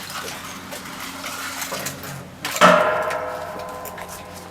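Light knocking and handling noise, then a single sharp metallic clang about two and a half seconds in that rings on with a clear tone and fades away over the next two seconds.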